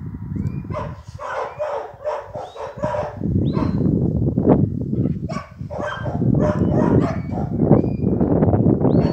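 A dog barking over and over in short, sharp barks, over a constant low rumble of wind on the microphone. Several thin whistle notes rise and then hold, scattered through the clip: a shepherd whistling commands to a working sheepdog.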